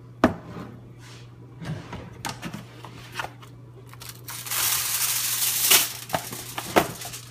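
A few light knocks and taps of handling, then from about four seconds in, aluminium foil crinkling as it is pressed and crimped over a container.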